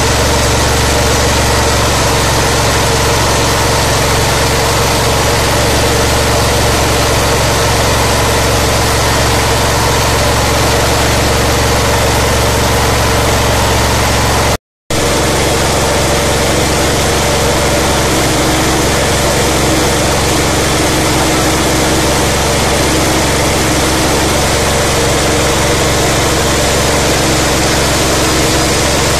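A 17 hp GX420-type single-cylinder engine fitted with an LPG conversion kit runs steadily, driving a mini paddy huller that is milling rice, so the engine's drone is mixed with a dense, even milling noise. The sound cuts out completely for a split second about halfway through, then carries on unchanged.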